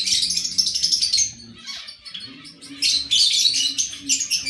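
Cage birds chirping and chattering rapidly in a bird room, in two busy stretches with a short lull around the middle.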